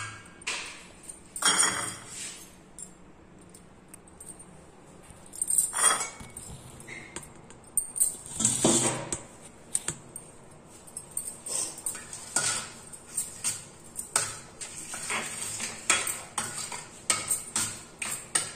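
Metal spoon clinking and scraping against a stainless steel plate as a spice paste is mixed. There are irregular clicks throughout and a few longer, louder scrapes.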